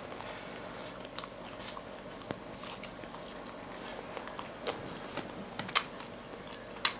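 Close-miked mouth sounds of a person chewing soft fried dough bread (odading), with scattered short clicks and smacks, the sharpest near the end.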